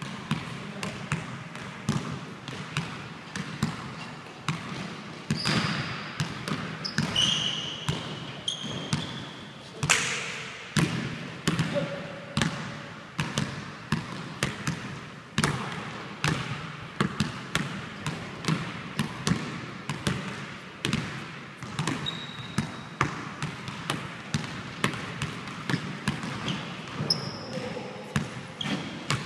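Basketball dribbled on a hardwood gym floor, bouncing steadily about once or twice a second, each bounce echoing through a large hall. A few short, high squeaks of sneakers on the floor come in between.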